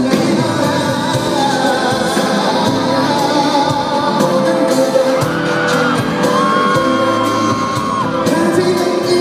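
A male pop singer sings live into a handheld microphone over pop backing music. He slides up about five seconds in and holds a long note through the second half.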